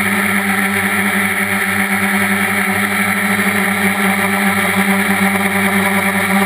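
Quadcopter's electric motors and propellers running steadily in flight, a loud, even hum with a strong low tone and a hiss above it, heard from the camera mounted on the multirotor.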